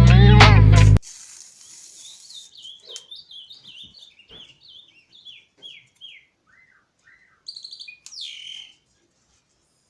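Music with singing stops abruptly about a second in, then a small bird chirps faintly: a quick run of a dozen or so falling chirps, a couple of lower notes, and a short buzzy trill with a falling call near the end.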